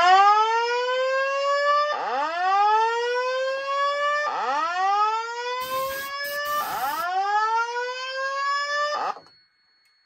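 Fire alarm voice evacuation speakers sounding the slow 'whoop' alert tone: four rising sweeps, each about two seconds long, then stopping about nine seconds in. This is the evacuation alert that comes before the recorded fire emergency message. A short burst of noise cuts across it about six seconds in.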